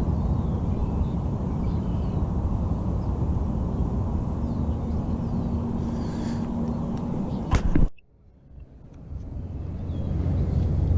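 Steady low outdoor rumble with faint bird chirps. A couple of sharp clicks come about seven and a half seconds in; then the rumble cuts out suddenly and swells back over the next two seconds.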